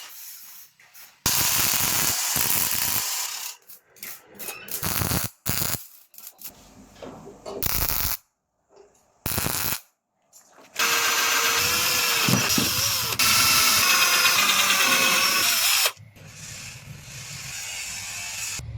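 Power tool running in several short bursts and one longer run, its motor pitch wavering, with clicks and knocks of metal parts being worked between runs.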